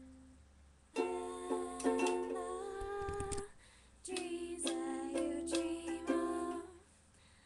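Ukulele strummed in two short phrases of ringing chords, with a brief pause between them.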